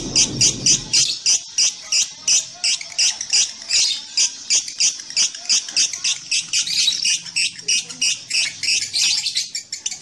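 Fischer's lovebird giving a long unbroken run of shrill chirps, about four a second. This is the continuous 'ngekek' song that contest lovebirds are kept and judged for.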